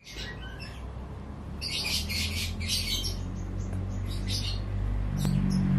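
Birds chirping in short repeated bursts of high-pitched calls over a low steady hum.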